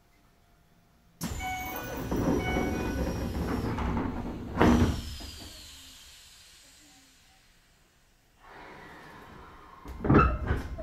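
Keisei 3000 series commuter train's sliding passenger doors operating at a station stop: a door chime beeps while the door gear hisses, and the doors shut with a heavy thud about four and a half seconds in. A steady hiss follows later, and a couple of loud clunks come near the end.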